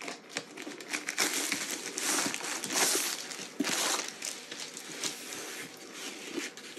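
Clear plastic sleeve crinkling and rustling as a rolled diamond-painting canvas is slid out of it, with a run of small crackles that is loudest near the middle.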